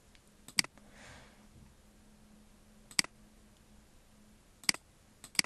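Computer mouse button clicking a handful of times: short, sharp clicks, some in quick pairs, with pauses of about one to two seconds between them.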